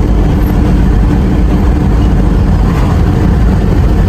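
Truck's engine and road noise heard from inside the cab: a loud, steady low rumble with a faint steady hum above it.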